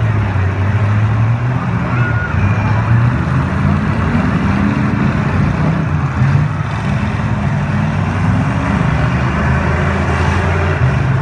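Demolition derby car engines running hard and revving, a loud continuous rumble that rises and falls in pitch.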